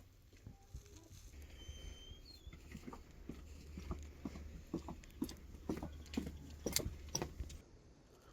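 A run of irregular knocks and taps, a few a second, getting louder from about three seconds in and stopping shortly before the end, over a low steady rumble.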